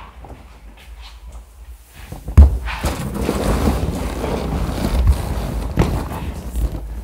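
Two people climbing into an old car's front seats. A sharp thump about two and a half seconds in is the loudest sound, then rustling and shuffling of bodies and clothes against the seats as they settle in.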